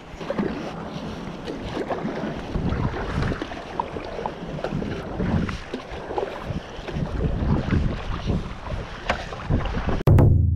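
Kayak paddle strokes splashing through the water in an uneven rhythm, with wind buffeting the microphone. Near the end a loud, low sound effect hits and rings down as it fades.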